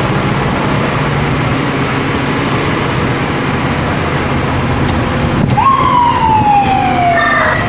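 Scania P310 fire truck's diesel engine running steadily in the cab on the move. About five and a half seconds in, after a click, the truck's siren comes on with a short rise, then one slow sweep down in pitch.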